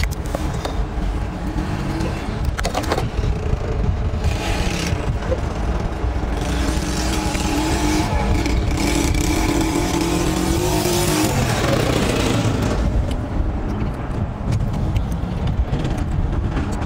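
An engine running close by, its hum rising a little and then falling away about twelve seconds in, over a steady low rumble of wind on the microphone.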